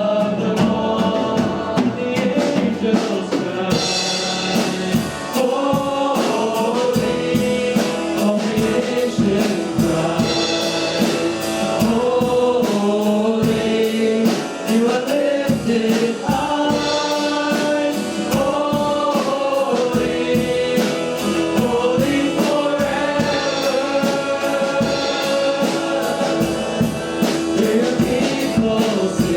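Church worship song sung by a group of voices with instrumental accompaniment and a steady beat.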